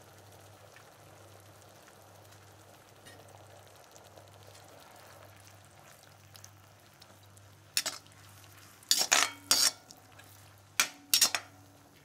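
A steel perforated skimmer stirring sauce in a cast-iron kadai: quiet at first, then five loud scrapes and knocks of metal on the pan in the last four seconds, the pan ringing faintly after some of them.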